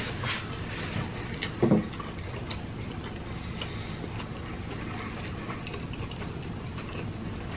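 Close-miked chewing: small scattered wet mouth clicks and smacks over a low room hum, with one short, louder low thump about a second and a half in.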